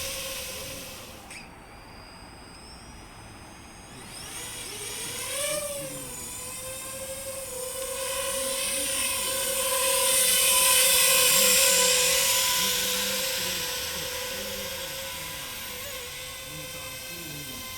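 DJI FPV quadcopter's propellers whining at a steady pitch. The pitch rises and falls briefly about five seconds in, and the whine is loudest around eleven seconds in before easing off.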